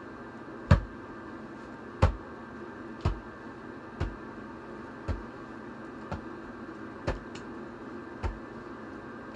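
A series of dull thumps, about one a second and eight in all, the first ones loudest, over a steady electrical hum.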